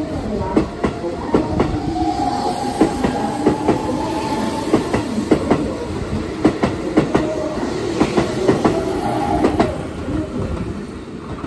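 Keihan 13000 series electric train pulling out of the station and passing close by: wheels clicking over rail joints under a steady rumble, with traction motor whine. It fades near the end as the last car moves off.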